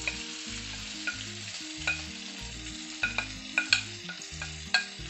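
Cut vegetables sizzling as they drop into hot oil in a non-stick frying pan, pushed off a plate with a spatula. Sharp clicks from the spatula knocking against the plate and pan come several times, more often in the second half.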